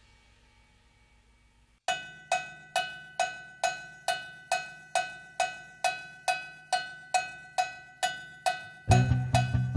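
Background music: after near silence, a song starts with a steady ringing percussion beat, a little over two strikes a second, and a bass line comes in near the end.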